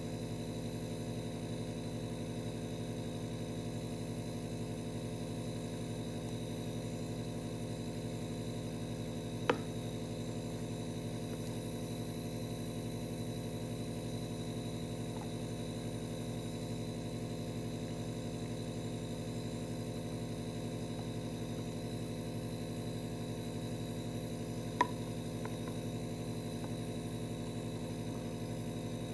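A steady electrical hum made of many even tones, with no change in level throughout. Two short sharp clicks stand out, one about a third of the way in and one near the end.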